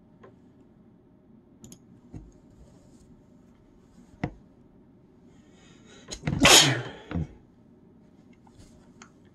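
A person sneezing, a sneeze lingering after a cold: a few faint clicks, a short breathy intake, then one loud sneeze about six and a half seconds in, with a shorter second burst just after.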